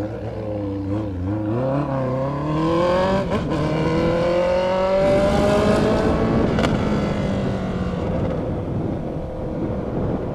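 Honda CBR650F inline-four on a straight pipe with no muffler, accelerating: the exhaust note rises steadily in pitch for a few seconds, then holds and eases off slightly as the bike cruises.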